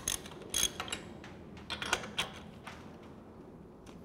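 A wrench with a 7/8-inch socket on an aircraft engine's spark plug, breaking the plug loose: a handful of short metallic clicks and creaks in the first three seconds, then quiet.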